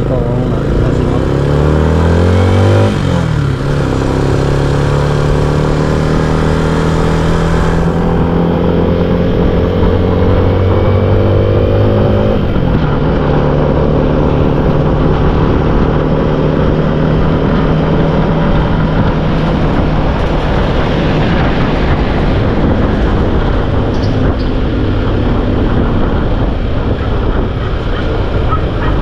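Motorcycle engine under way, its note climbing and dropping sharply twice, about 3 and 12 seconds in, then holding steady, over wind and road noise.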